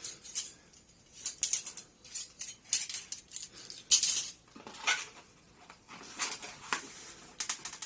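Metal cutlery, spoons among it, clinking and rattling together as the pieces are handled: a series of sharp clinks at irregular intervals, the loudest about four seconds in.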